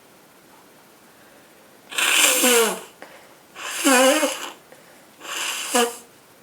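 A woman with a head cold sneezing three times in a row, each sneeze a loud voiced burst, about a second and a half apart, the last one shorter.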